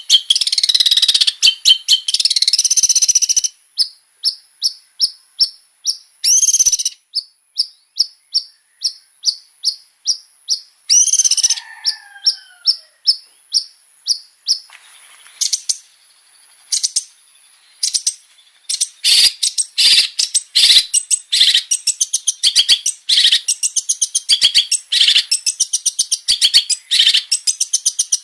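Long-tailed shrike (cendet) singing. It opens with a fast chattering phrase, then gives a long run of evenly spaced sharp notes about two a second, broken by a couple of short squeaky bursts and a falling whistled note. About two-thirds of the way in it breaks into rapid, continuous chattering song.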